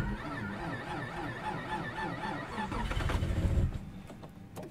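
Nissan Skyline V35 engine being cranked by the starter at about −30 °C. The cranking rises and falls in pitch about four times a second with the compression strokes, then stops after about three and a half seconds without the engine catching: a failed first start attempt in deep cold.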